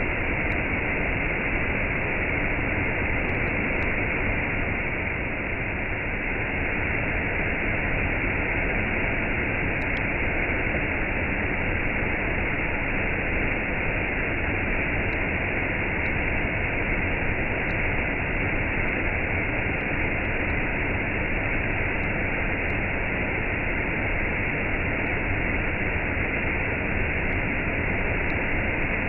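Waterfall with a cascade: water falling in a steady, unchanging rush.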